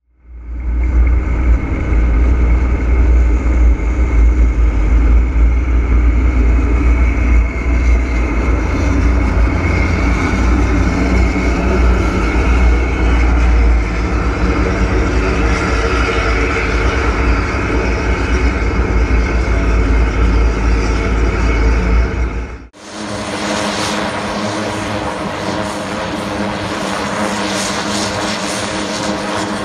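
A Diamond DA40's propeller engine drones inside the cabin while taxiing, a steady sound with a strong low rumble. Partway through, it cuts suddenly to a 1,100 hp Tucano turboprop running on the ground at the run-up area, a steady hum with several held tones.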